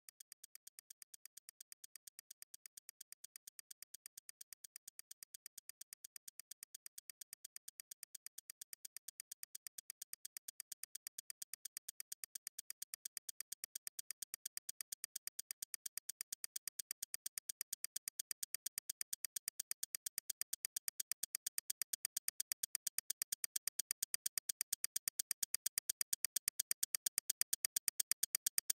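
Electronic soundtrack of rapid, evenly spaced high-pitched pulses, like fast ticking, that swell steadily louder.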